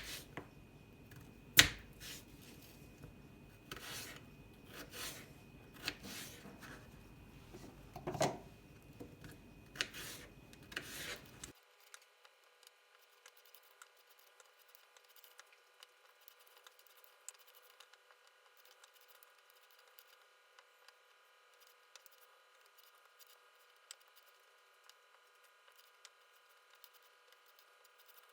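Kitchen handling sounds: a series of sharp clicks, taps and rubbing noises for about eleven seconds, then the sound drops abruptly to near silence with only faint ticks.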